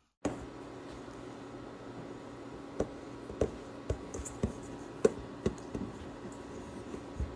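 Irregular light knocks and clicks, about ten of them, over a steady hum.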